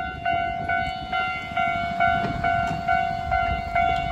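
Japanese railway level crossing's electronic warning bell ringing, one pitched tone struck over and over about twice a second, the signal that a train is approaching and the barriers are coming down.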